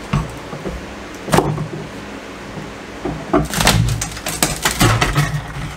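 Old plywood subfloor being pried up with pry bars: a sharp knock about a second in, then a rapid run of cracks and creaks as the sheet splits and tears loose.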